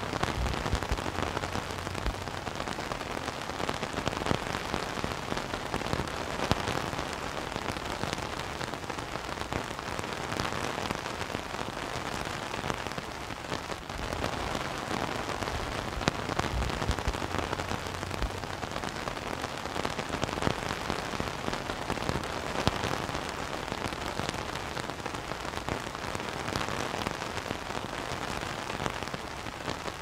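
Heavy rain falling on a tent's fabric, heard from inside the tent: a steady patter with many scattered sharper drop hits.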